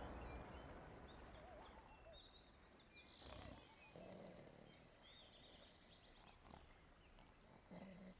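Near silence: faint forest ambience with scattered small bird chirps, and a couple of soft low sounds about four seconds in and near the end. The tail of a music cue fades out at the start.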